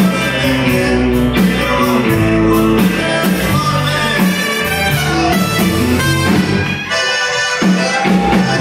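A live Tejano band playing: trumpet, button accordion, electric guitar, keyboard and drums, with a lead singer at the microphone. The bass thins out briefly about seven seconds in.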